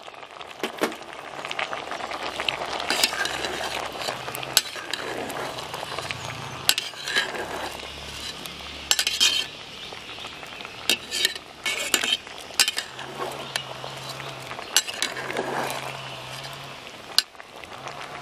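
Long steel ladle stirring crushed green chillies into half-cooked sweet potato cubes in an aluminium pot of simmering water, clinking against the pot again and again over the steady hiss of the pot.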